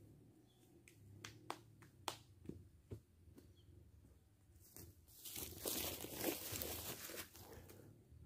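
Footsteps on dry leaf litter and twigs: a few sharp snaps, then a few seconds of dense crunching and rustling about halfway through.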